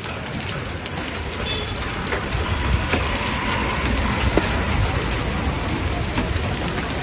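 Heavy rain mixed with hail: a dense, steady rush of falling water dotted with many small sharp ticks of hailstones striking.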